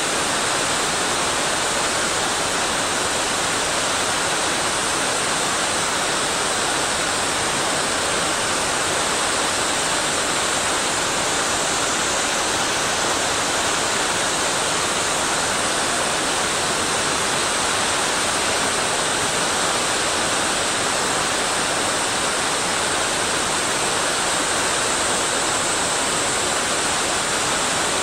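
Fast-flowing mountain river water rushing steadily and evenly, with no breaks or changes.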